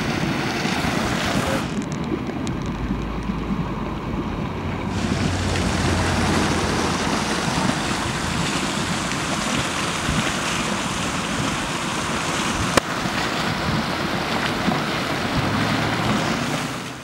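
Steady rushing hiss of steaming, boiling mud pots, with wind buffeting the microphone in a low rumble a few seconds in. A single sharp click comes near the end.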